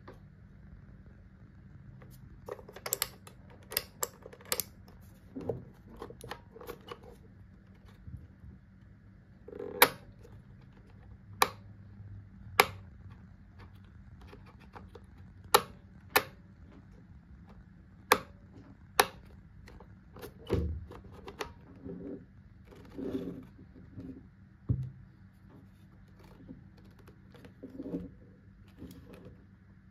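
Plastic clicks and taps from handling a Philips steam iron as its steam and spray buttons and temperature dial are worked: a run of sharp clicks a second or more apart, with softer rubbing and handling between and one dull knock about two-thirds of the way through.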